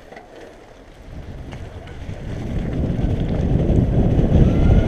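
Wind rushing over the microphone and mountain-bike tyres rolling on a gravel trail, building steadily louder from about a second in as the bike gathers speed downhill.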